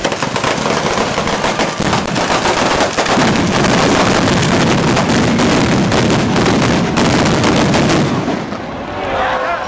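A traca, a long chain of firecrackers strung along the street, going off in a rapid, continuous crackle of bangs that grows heavier partway through and stops abruptly about eight seconds in.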